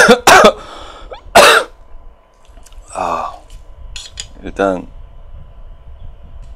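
A man clearing his throat and coughing in five short bursts, the first three the loudest, over light scraping of wooden chopsticks mixing noodles in a bowl.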